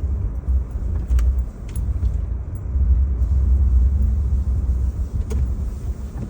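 Steady low rumble of a car moving slowly, heard from inside the cabin, with a few faint clicks over it.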